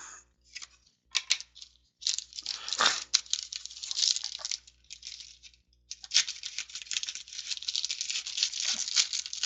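Trading cards and foil card packs being handled: papery rustling and crinkling in irregular spurts, with a short pause a little before six seconds in.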